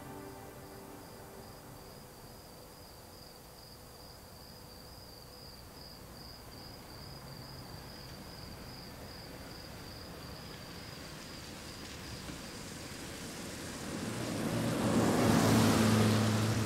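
A car approaching along the road, its tyre rush and engine hum swelling slowly and loudest near the end as it passes close. Underneath, a cricket chirps steadily in quick high pulses.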